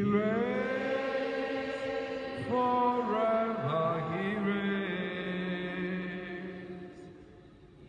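A single voice chanting long, sustained notes, each sliding up into pitch at its start, three phrases in a row that fade away near the end.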